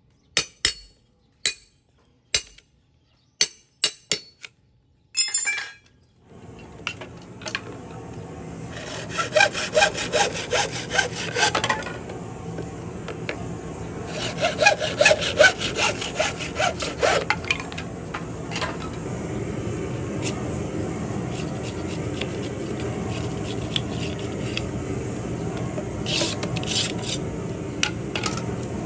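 Hand hacksaw cutting through a thin bamboo pole with quick back-and-forth strokes that come in spells. It is preceded by a series of sharp taps on the bamboo.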